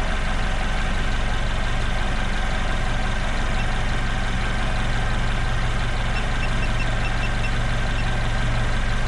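Car engine idling steadily, with a quick run of faint, short high beeps about six seconds in.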